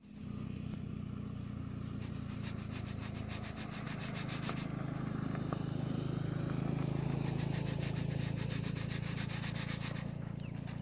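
An engine running steadily: a low hum with a fast, even pulse, a little louder in the middle.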